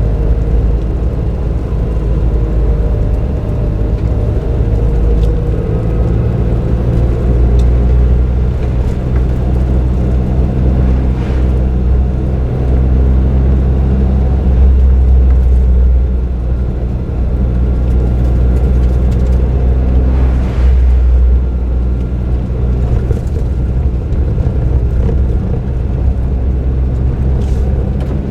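Suzuki Jimny JB23W under way, its 660 cc turbocharged three-cylinder engine and aftermarket muffler giving a steady low drone with road noise, swelling and easing a little, with a few brief knocks.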